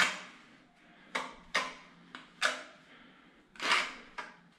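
Steel notched trowel scraping and spreading tile adhesive, in five short strokes spaced irregularly about half a second to a second apart.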